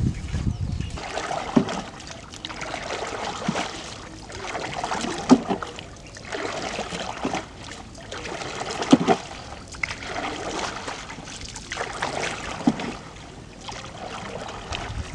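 A long wooden paddle being worked through shallow water choked with floating plants to push a small wooden boat along. Repeated swishing, splashing strokes come about every one and a half to two seconds, with small knocks of wood against the hull.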